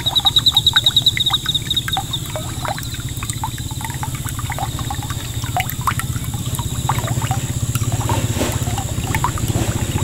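Small solar fountain pump's jet of water splashing back onto a pond surface: a steady patter of drips and trickling. A rapid high-pitched chirping sounds over it for about the first second.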